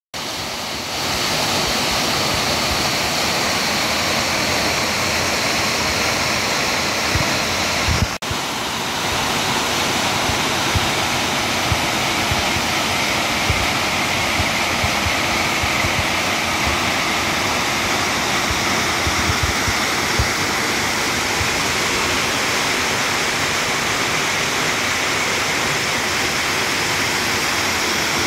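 Mountain waterfall pouring over rocks, a steady loud rushing of water. The sound drops out briefly about eight seconds in.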